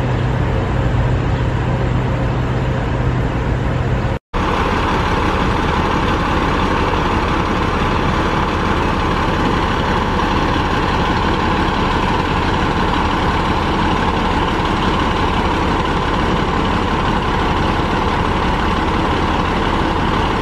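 Fire trucks' diesel engines running steadily. About four seconds in the sound cuts to a louder engine noise with a steady higher hum over it.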